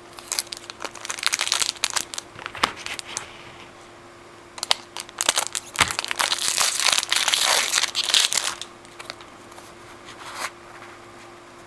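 Foil wrapper of a trading card pack crinkling as it is handled and torn open, in two spells of crackly rustling.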